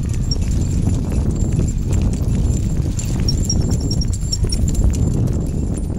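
A Mini RS dog sulky rolling on its 26-inch tyres along a concrete sidewalk behind two trotting Portuguese water dogs: a steady low rumble with a rhythmic clatter in time with the dogs' gait.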